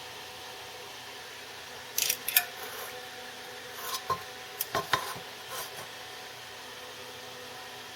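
Metal clinking and scraping from handling the copper fixture and soldering tools, in a cluster of sharp clicks and short scrapes about two seconds in and again around four to six seconds. Under it runs the steady hum of a fume extractor fan.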